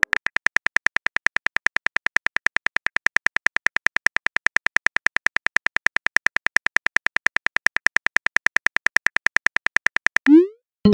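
Smartphone keyboard typing clicks, an even, rapid run of about eight taps a second as a text message is typed out. Just before the end the clicks stop and a short rising blip sounds, the message-sent tone.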